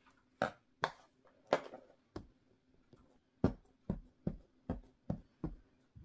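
Hands patting and pressing a lump of Play-Doh against a tabletop: a series of short, soft thumps, a few scattered at first, then an even run of about two or three a second through the second half.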